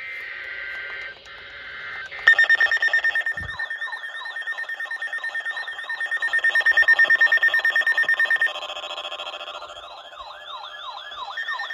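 Emergency Alert System SAME header for a severe thunderstorm warning: two short bursts of screechy digital data tones. About two seconds in, the weather-alert receivers start their alarms: a rapidly pulsing electronic beep with warbling, sweeping tones layered over it. The pattern switches about eight seconds in and back near the end.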